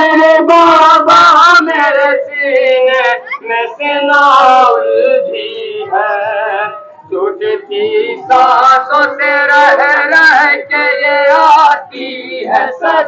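A lead reciter singing a noha, a Shia mourning lament, into a microphone and through a loudspeaker, in long wavering phrases with short breaks between lines.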